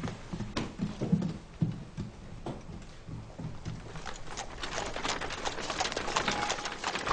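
Horse-drawn carriage on a road: hooves clip-clopping with the clatter of the carriage, starting about halfway through and growing louder. A few dull low thumps come before it.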